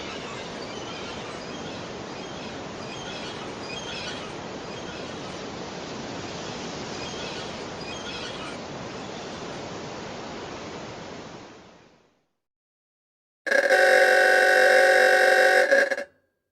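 Steady rushing ambience with scattered short bird chirps, fading out about twelve seconds in. After a short silence comes a loud, steady pitched tone, like a horn, lasting about two and a half seconds.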